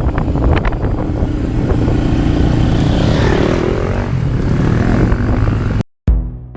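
ATV engine running under way with wind rushing over the microphone, its pitch rising and falling briefly about halfway through. It cuts off suddenly near the end, and music with a heavy drum beat starts.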